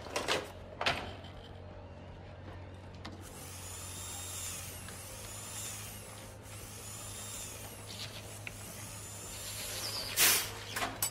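A small electric motor whining in four rising-then-falling whirs, each about a second and a half long, over a low steady hum. A few clicks come near the start and a louder knock near the end.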